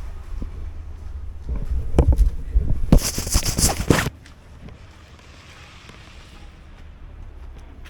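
Wind buffeting the handheld camera's microphone, with crackling and rubbing noise that swells into a loud crackle about three seconds in and cuts off abruptly about a second later, leaving faint outdoor hiss.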